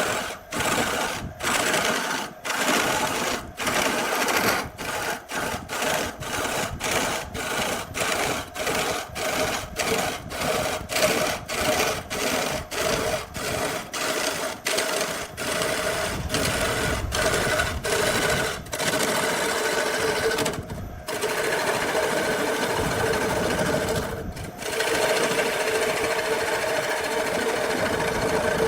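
Electric woodworking power tool running with a steady motor whine. For the first twenty seconds the sound cuts in and out about twice a second; after that it runs on steadily, with two short breaks.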